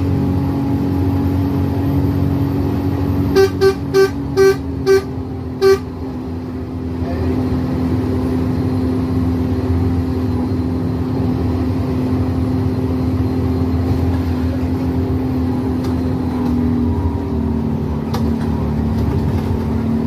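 Bus horn sounding a quick run of about six short blasts, all at one pitch, about three to six seconds in, over the steady drone of the bus's engine and road noise.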